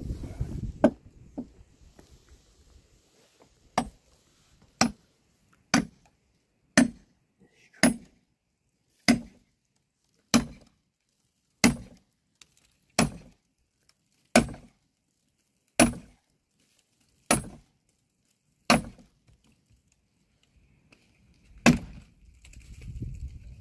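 Axe chopping into a dead, weathered tree trunk: a steady run of about a dozen sharp strokes, one every second or so, then a short pause and one last stroke near the end.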